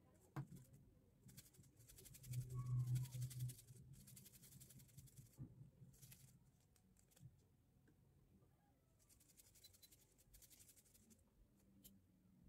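Red onion being grated on a stainless-steel grater: faint rasping scrapes in short runs, stroke after stroke. A brief low hum about two seconds in.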